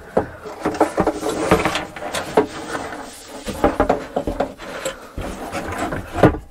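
A hinged wooden countertop section being handled and lowered. It gives scattered wooden knocks, rubbing and small clicks, with a sharper knock near the end.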